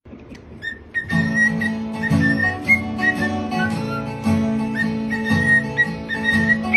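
An acoustic guitar being strummed, coming in about a second in, with a cockatiel whistling high notes and short chirps along with it.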